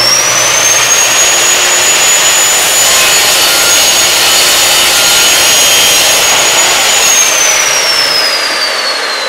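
Bosch high-speed cut-off saw with a 100-tooth wood-cutting blade, its motor whining at full speed as the blade cuts through a wooden batten. About seven seconds in, the whine starts falling in pitch as the motor spins down after the cut.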